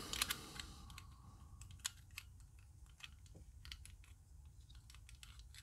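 Faint, scattered clicks of small plastic Rubik's Cube pieces being picked up and handled.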